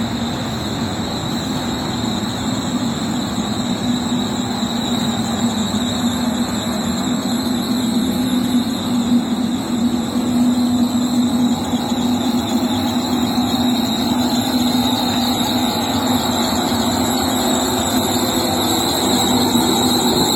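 Split air conditioner outdoor unit running, a steady mechanical hum with a thin high-pitched whine above it.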